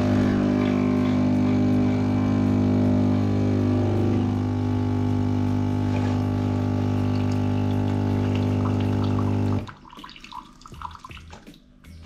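Philips 2200 series espresso machine's vibratory water pump buzzing steadily as it pushes water through the machine and out of the spout. It cuts off suddenly about ten seconds in.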